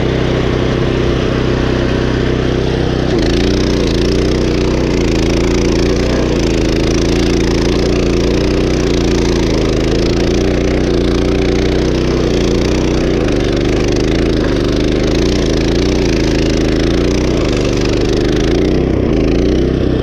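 Power King walk-behind stump grinder running at full throttle while grinding out a palm stump, with a dense grinding hiss over the engine. From about three seconds in the engine's pitch wavers up and down as the cutting wheel loads and unloads in the wood and soil.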